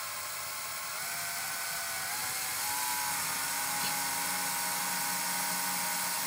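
Bosch cordless drill-driver running slowly, driving a self-drilling plasterboard anchor with a metal tip into gypsum board without pre-drilling. A steady motor whine that steps up in pitch about a second in and again a little later, then holds.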